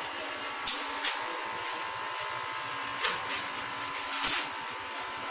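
Small DC air compressor running steadily with a constant whine, supplying air to a pneumatic arm exoskeleton. Two brief sharp sounds cut in, one under a second in and one just after four seconds.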